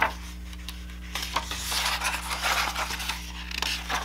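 Pages of a hardcover picture book being turned: a sharp paper flap at the start, then a few seconds of paper rustling and sliding under the hands, over a steady low hum.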